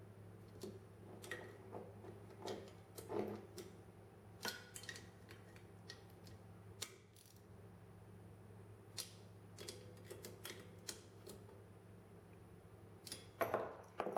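Small ratchet wrench clicking and clinking as the through-bolts of an electric motor's end bells are tightened down after a bearing replacement: irregular light metallic clicks, with a louder clatter near the end as the wrench is laid on the bench.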